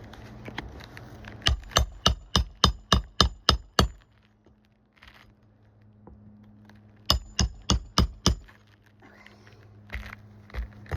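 A hammer driving roofing nails into a shingle: a quick run of about nine sharp strikes, roughly three a second, then a pause and about five more.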